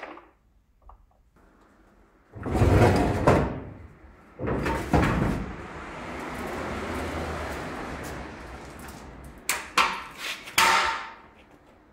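A heavy wheeled steel frame being hauled across a concrete floor under a suspended engine: two loud scraping clatters, a long steady rolling rumble, then several sharp metallic knocks near the end.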